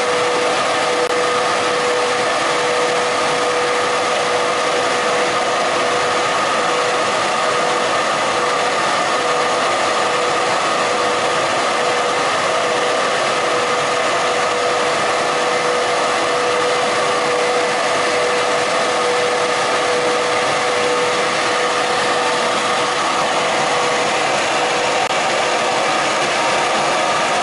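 Blown film extrusion line running: steady machine noise, an even hiss with a constant tone, holding the same pace throughout.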